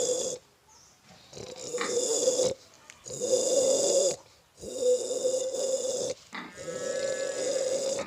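A man imitating a pig's howling with his voice: the cry of a pig that senses it is being taken to slaughter. About four long calls of a second or so each, with short breaks between.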